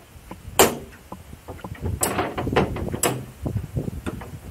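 Footsteps walking along railway tracks: three sharp knocks about a second apart among irregular smaller clicks and scuffs.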